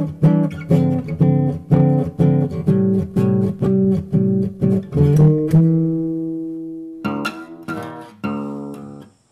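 Guitar music: a quick, even run of plucked notes, then a chord left ringing and dying away about halfway through, then more plucked notes.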